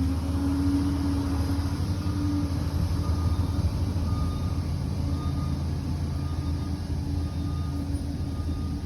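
Liebherr PR 746 bulldozer's diesel engine running steadily under work, with a reversing alarm beeping about once a second starting about three seconds in.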